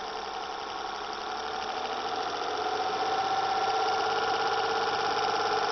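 Playback of a recorded engine run-up measurement: a continuous engine note made of many stacked tones, growing gradually louder.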